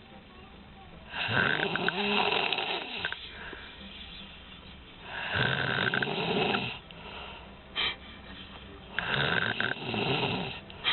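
An elderly woman snoring in her sleep: three long snores about four seconds apart.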